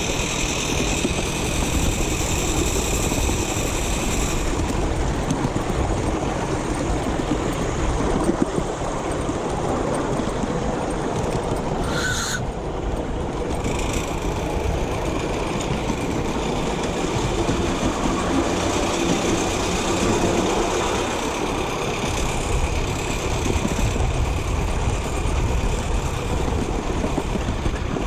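Miniature steam train running along its track with riders aboard: a steady, noisy rumble of the small locomotive and its wheels on the rails.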